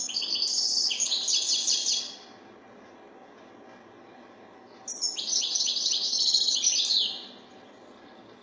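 European goldfinch singing: two phrases of rapid, high twittering song, one at the start running about two seconds and another starting about five seconds in, lasting a little over two seconds.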